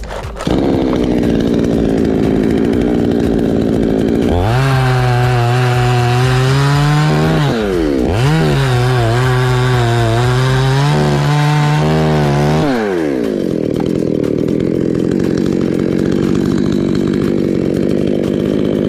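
Chainsaw running at a low steady speed, then opened up to high revs for about eight seconds. The revs drop briefly and climb again partway through, and near the end the saw falls back to the lower speed.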